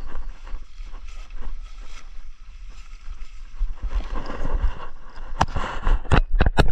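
Handling noise: a jacket rustling as it is shifted on a motorbike seat, then several sharp clicks near the end, over a steady low rumble.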